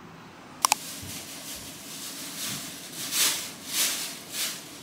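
Plastic bag rustling in three short bursts as it is handled. About two-thirds of a second in, two quick sharp clicks come just before the rustling.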